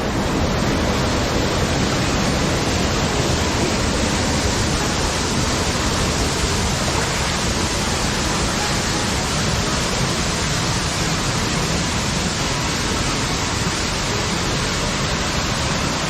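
Waterfall rushing: a steady, even rush of falling water with no breaks.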